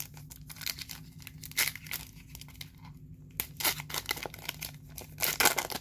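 Foil wrapper of a Donruss Optic trading-card pack being torn open and crinkled by hand: a run of short rips and crackles, the loudest tearing near the end.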